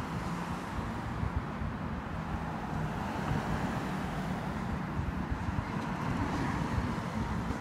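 Wind buffeting the microphone over a steady hum of road traffic, the traffic noise swelling a little after about five seconds.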